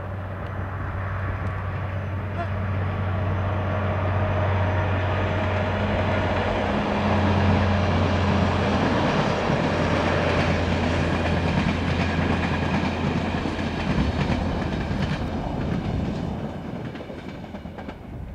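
Adtranz DE2000 diesel locomotive hauling an InterCity train past. Its steady engine hum builds as it approaches and gives way to the clatter of the coaches' wheels on the rails, which fades near the end.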